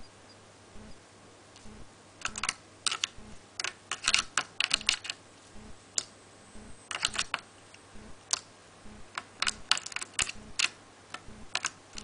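Java sparrow's beak tapping and clicking against a clear plastic water dish: quick sharp clicks in irregular clusters, starting about two seconds in.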